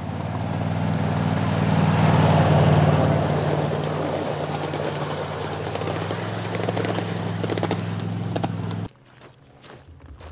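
Engine of a ride-on miniature railway locomotive running with a steady hum. It grows louder over the first two to three seconds, then eases off. The sound cuts off abruptly near the end, leaving faint clicks.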